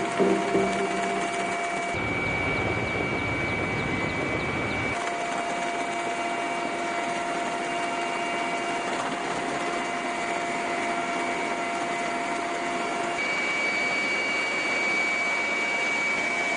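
Military helicopter turbine engines with a steady high whine over a rushing noise as the helicopters fly. The sound changes abruptly about two, five and thirteen seconds in, with a deeper rumble for a few seconds after the first change.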